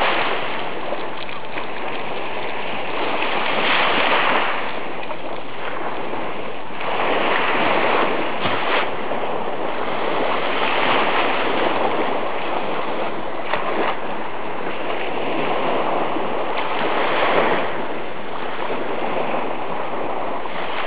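Sea surf washing on a beach, a steady hiss that swells and eases every few seconds as waves come in.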